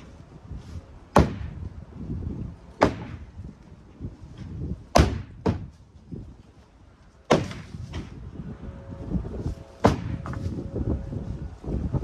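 A long-handled digging tool striking hard ground and debris again and again: about six sharp blows at irregular intervals, with scraping and crunching between them.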